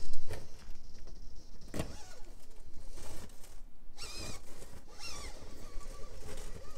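Traxxas TRX-4M 1/18-scale RC crawler's electric motor and geared drivetrain whining, the pitch rising and falling with the throttle as it crawls over rock. Several sharp knocks come from the tires and chassis bumping on the rocks.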